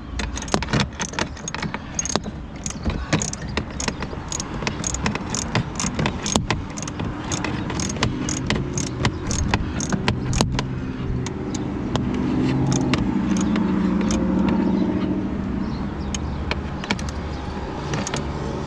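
Ratchet wrench with an E14 socket clicking in quick strokes, running down and tightening the door check strap bolt on a Mercedes W221 front door after a new bushing has been fitted to cure a flappy door stop. About twelve seconds in the clicking gives way to a steady low hum for a few seconds, then a few scattered clicks.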